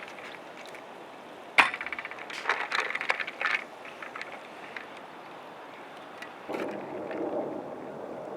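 Metal cookware clanking: one sharp, ringing clank about a second and a half in, followed by a run of lighter clinks, then a steady rushing noise starts near the end.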